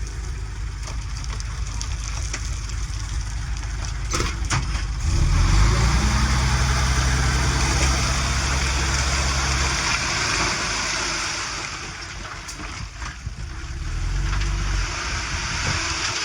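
Diesel engine of heavy earthmoving machinery running over a steady rushing noise. Its low drone grows louder about five seconds in, eases off around ten seconds, and surges again briefly about fourteen seconds in.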